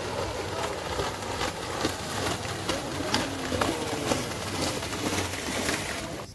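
Crowd of spectators at a cow race shouting now and then over steady wind noise on the microphone, with scattered sharp clicks and knocks.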